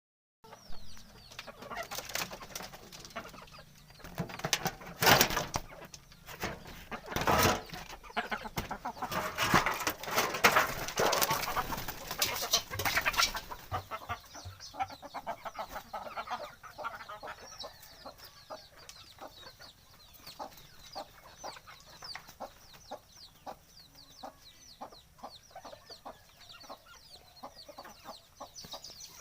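A flock of domestic chickens clucking, loudest and busiest through the first half, then quieter, with many short ticks and faint high chirps.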